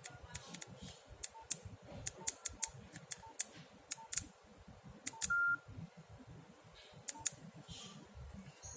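Keys on a Nokia X2-01 phone's QWERTY keypad being pressed: a quick run of sharp clicks, several followed by a short faint key beep, with a longer beep of about half a second a little past the middle.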